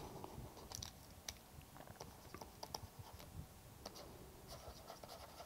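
Faint, scattered ticks and light scratches of a stylus writing on a tablet.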